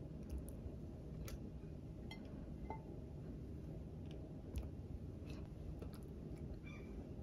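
Scattered faint clicks and light taps of kitchen handling over a steady low room hum.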